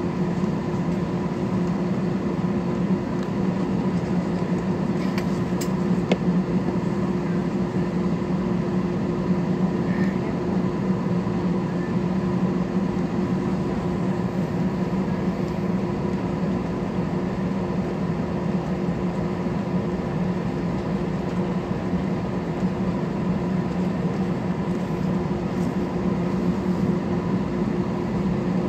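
Steady drone inside an airliner cabin: engine and airflow noise with a constant low hum.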